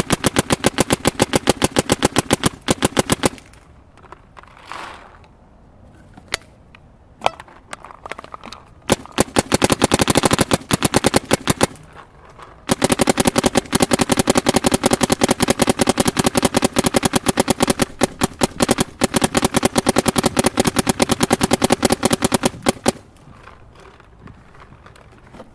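Planet Eclipse Etha 2 paintball marker firing on compressed air in long rapid strings of shots. There is a pause of a few seconds with a few single shots, then more strings, and the firing stops shortly before the end.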